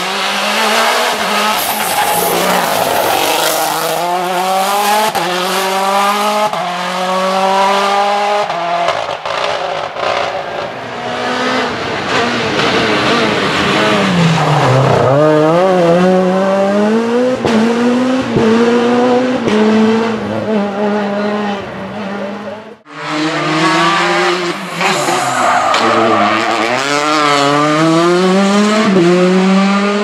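Rally cars at full speed on a tarmac special stage, one after another. The engines rev hard through the gears, and the pitch sweeps down and up again as the cars brake, downshift and accelerate through the bends.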